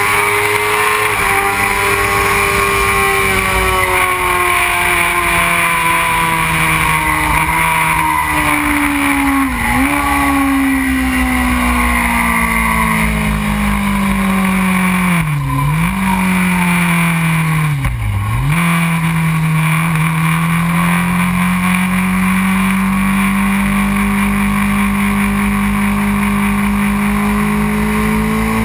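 2001 Honda CBR600 F4i's inline-four engine running hard on track, with heavy wind rush over the bike. Its note sags slowly for most of the stretch, dipping briefly three times, then climbs gently again near the end.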